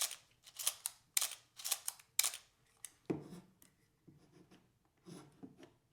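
Small screwdriver driving screws into a camera's metal front apron: a run of sharp little clicks and scrapes about twice a second, then a few softer knocks of handling near the end.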